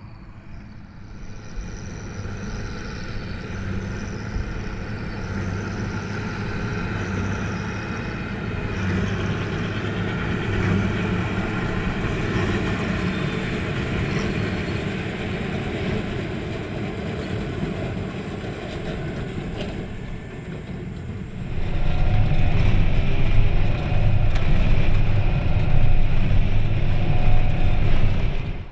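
Tractor's diesel engine running under load, growing gradually louder, then suddenly much louder and deeper from about 21 seconds in.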